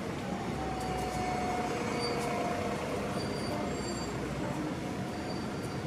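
Steady rumble of city street traffic, with a faint thin squeal held for about three seconds from the start.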